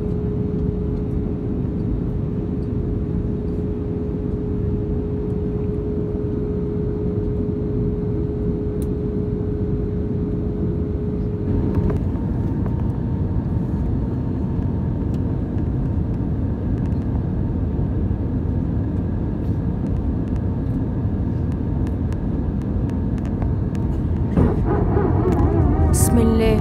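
Airbus A320 cabin noise heard from a window seat over the wing: a steady roar of the CFM56 engines and the airflow, with a steady hum that cuts off about twelve seconds in. The aircraft is low over the city on its descent. Near the end the noise swells, with a wavering tone and a sharp click.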